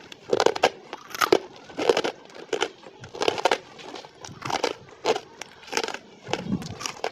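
Close-up crunching as someone chews crispy spicy basreng (fried meatball chips), with a crunch about every half second to second in a steady chewing rhythm.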